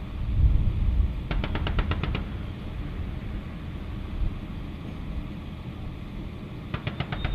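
Two bursts from a vehicle-mounted M2 .50-calibre heavy machine gun, at roughly ten shots a second: about eight rounds a little over a second in, then a second burst starting near the end. A steady low rumble lies under both.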